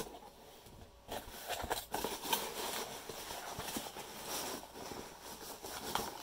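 Cardboard shipping box handled and opened by hand, its flaps bending and rubbing, while fingers dig through packing peanuts. It makes an irregular run of light knocks and rustles that starts about a second in.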